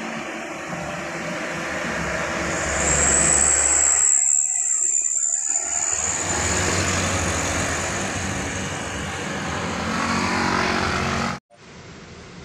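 Loaded sugar-cane truck's diesel engine and tyres passing close by, growing louder as it approaches and goes past, with a high whine through the middle. The sound cuts off abruptly about eleven seconds in, leaving quieter road noise.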